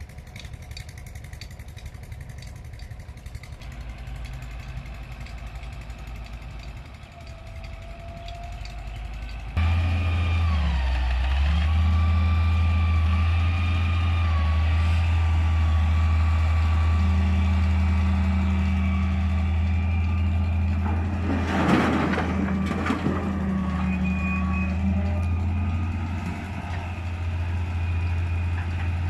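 Heavy diesel machinery running: a quieter engine sound at first, then from about ten seconds in a loud steady low drone from the excavator's and MF 385 tractor's diesel engines, with a wavering whine above it. About two thirds of the way through there is a brief loud noisy crash.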